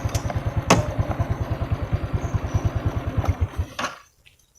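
Motorcycle engine idling with an even low putter, then switched off and cutting out near the end. A single sharp click sounds about a second in.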